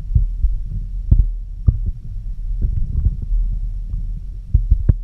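Steady low rumble of moving water, heard through an underwater camera housing, with irregular soft knocks and clicks over it.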